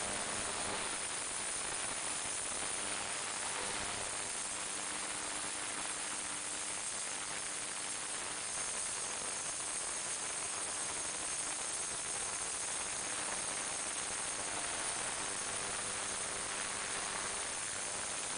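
Ultrasonic cleaner running: a steady cavitation hiss from the water in its tank, with a faint hum that comes and goes underneath.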